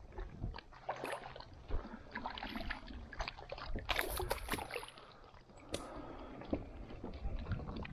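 Water splashing and sloshing at a fishing kayak, with scattered knocks and clicks, loudest about four seconds in.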